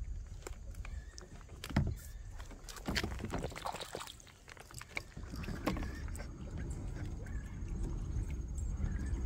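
Water splashing and trickling against a plastic Old Town kayak as it moves and turns, with several short knocks between about one and six seconds in, over a steady low rumble.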